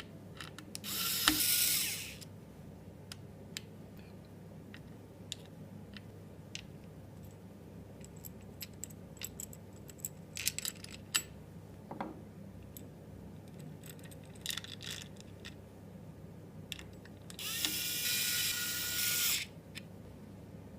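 Small electric screwdriver whirring in two short bursts, one about a second in and a longer one of about two seconds near the end, as screws are driven during PC assembly. Light clicks and taps of parts being handled come between the bursts.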